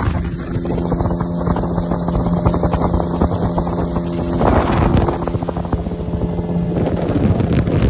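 Speedboat engine running at speed, a steady hum under wind buffeting the microphone, with a louder surge about four and a half seconds in.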